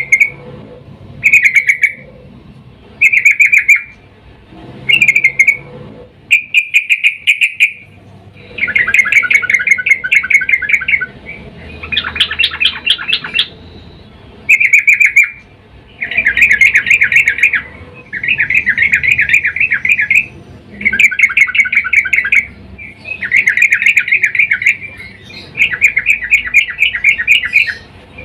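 Yellow-vented bulbul (trucukan) calling in repeated bursts of rapid chattering notes. The bursts are short at first, then become runs of about two seconds each with short pauses between. The calls are presented as a female in mating mood calling to a male.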